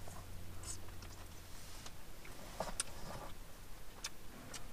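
Quiet sounds of someone eating, with a few faint short clicks spread through: bread dipped into a metal pot and chewed, inside a car.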